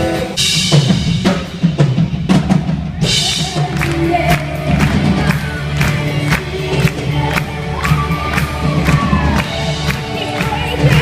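Music with drums keeping a steady beat: kick, snare and other percussion.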